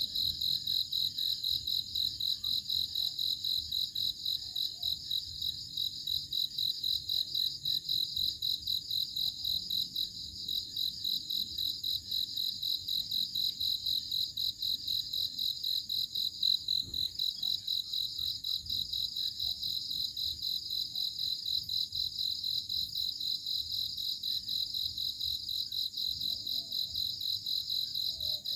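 Cricket chirping steadily: a high, rapidly pulsing trill that keeps on without pause.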